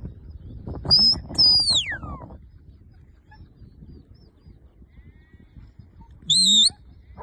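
Shepherd's whistle commands to a working sheepdog: a short high whistle about a second in, then a long whistle that falls steeply in pitch, and near the end a short warbling whistle.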